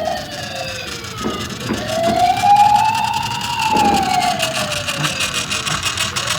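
Toy ambulance's electronic siren wailing, its pitch sliding slowly down, back up and down again about every three seconds, with a few light clicks and knocks from the toy.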